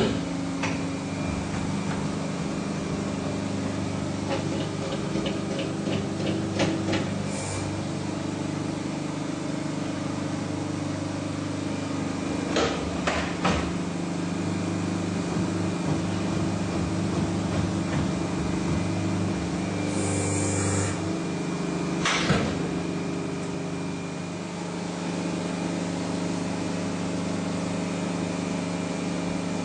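A plastic injection moulding machine's hydraulic unit humming steadily, with scattered metallic clicks and clanks from work on the machine and a short hiss about twenty seconds in.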